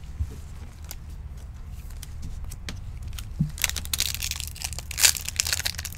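A foil trading-card pack wrapper being torn open and crinkled, starting about halfway in and continuing as dense crackling.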